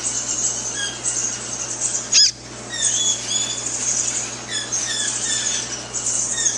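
Newly hatched macaw chick peeping: a run of short, high chirps throughout, with one louder, falling cry about two seconds in.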